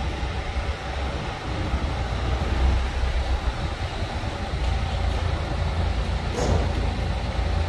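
BMW 320d E90's 2-litre four-cylinder turbo-diesel running at low revs through a Supersport aftermarket sport exhaust, a steady deep exhaust rumble as the car creeps backward and stops, echoing in a concrete underpass.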